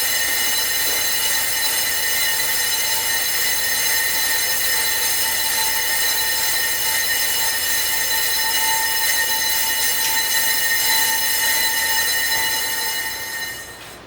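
A steady, high-pitched metallic squeal from a brake disc rotor, with several overtones, fading out about a second before the end.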